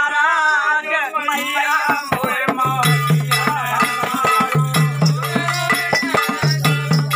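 Indian folk devotional music: a voice sings until about two seconds in, then dholak drumming and a jingling rattle of bells take over in a fast, steady beat, over a low repeating bass figure.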